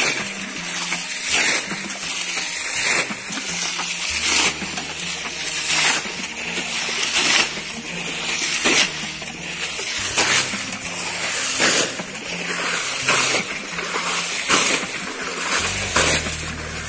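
Muddy water being bailed out of a shallow stream pool and flung onto the bank, one big splash about every second and a half.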